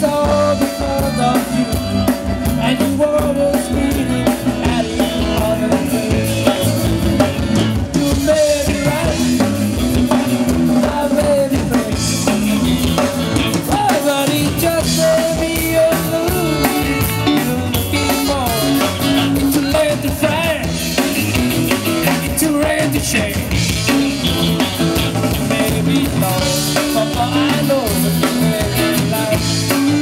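Live country band playing a song with drums and guitar, and a singing voice over them.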